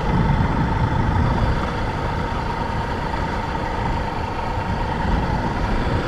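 Motorcycle running at a steady speed while being ridden, a low rumble of engine and road noise with a thin steady hum above it.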